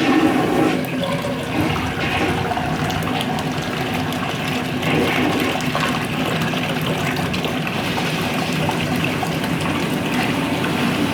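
1964 Universal Rundle wall-hung toilet flushing from a Briggs Conserver gravity tank: water rushes steadily into the bowl, loudest right at the start, and the siphon takes hold to empty it.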